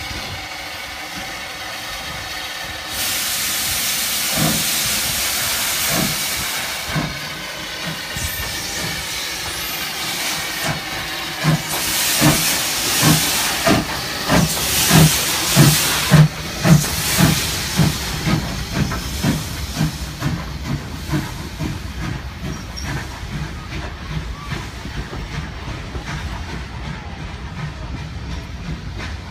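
LB&SCR E4 class 0-6-2T steam tank engine No. 473 Birch Grove starting away with a train. Steam hisses, much louder from about three seconds in, then the exhaust chuffs begin, coming faster and louder and loudest about halfway through. After that they carry on quicker but fainter as the engine pulls away and the carriages roll past with the click of wheels on rail joints.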